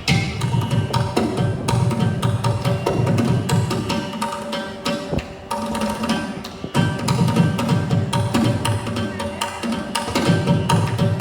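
Music driven by fast, dense percussion strikes over a steady pitched accompaniment.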